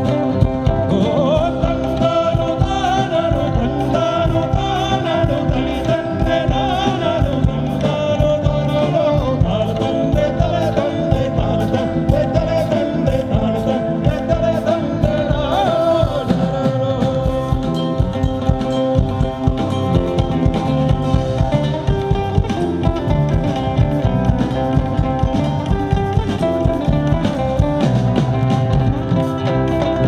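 Rock band playing live: a sung melody over guitar and drums, with the voice most prominent in the first half.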